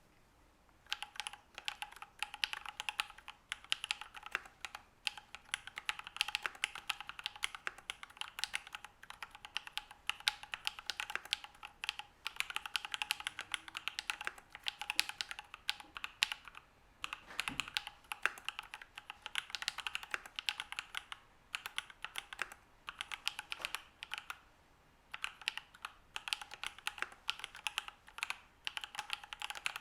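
Typing on a Matrix Noah V2 mechanical keyboard with lubed Alpaca V2 linear switches, a 1.5 mm aluminium plate and PBT keycaps. It is a fast, continuous run of key clacks starting about a second in, with a few brief pauses.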